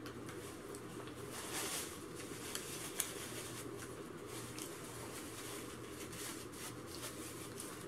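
Quiet eating sounds: a fork picking at fried chicken, with faint small clicks and rustles and one sharper click about three seconds in, over the steady hum of a room fan.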